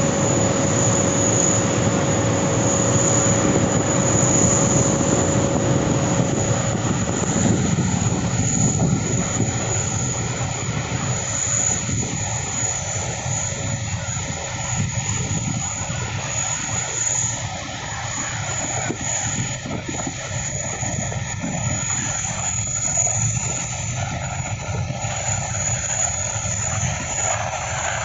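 Formation of military helicopters flying past, steady engine and rotor noise with a fine rapid beat that sets in about a third of the way through as they approach.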